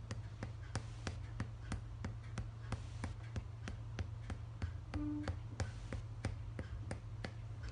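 Tok Sen hammer massage: a wooden mallet tapping a wooden wedge pressed against the body, in an even rhythm of about three sharp taps a second. A steady low hum runs underneath.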